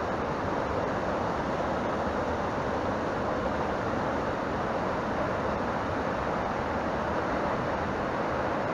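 Fast mountain stream rushing steadily over boulders in white-water rapids.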